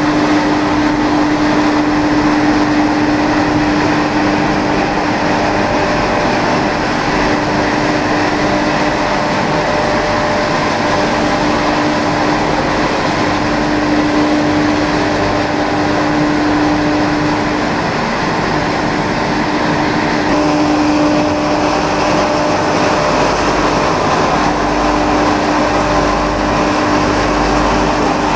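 Sawdust dryer plant machinery running: a loud, steady drone of fans and motors with a constant hum, and a deeper rumble coming in near the end.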